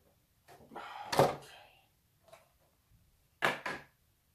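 Rigid clear plastic packaging tray from a boxed action figure being handled, crackling loudly about a second in, then two sharp knocks in quick succession near the end as it is set down on the table.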